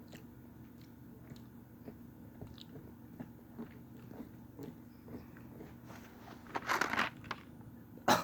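A person chewing a jelly bean close to the microphone: small wet mouth clicks and squishes, with a louder, noisier burst near the end.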